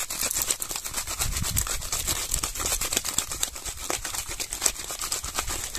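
Small whole fish being tossed and mixed with salt and turmeric in a bowl: a dense, irregular run of small scraping and clicking sounds.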